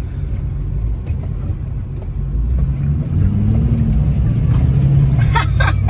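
Ford F-250 Powerstroke diesel engine running, heard from inside the cab as a steady low drone that grows a little louder about halfway through.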